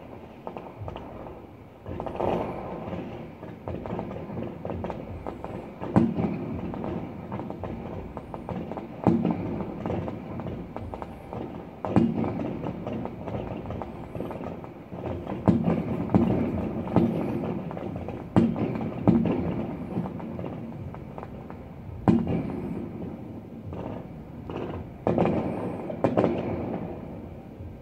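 A fireworks show: shells bursting in a continuous irregular series of booms, one every one to three seconds, each followed by a rolling echo.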